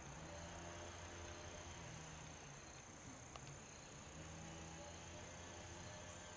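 Faint outdoor ambience: a steady high-pitched insect trill over a low hum, with one faint tick a little past halfway.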